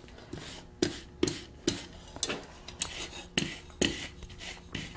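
Brass wire brush scrubbing a dull-red-hot steel ornament on an anvil: short scraping strokes, each with a tap of the brush on the steel, about two a second. The brush is rubbing brass onto the hot iron to leave gold highlights.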